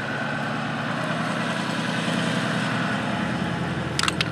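An engine running steadily at idle, an even low hum. About four seconds in, a quick run of sharp clicks.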